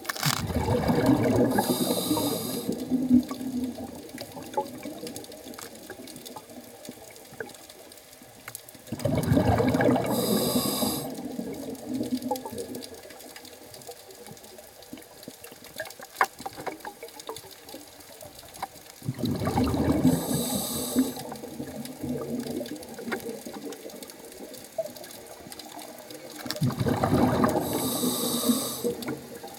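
A scuba diver's regulator exhaust: four loud bursts of exhaled bubbles, one breath about every nine to ten seconds, with faint scattered clicks of the underwater surroundings between the breaths.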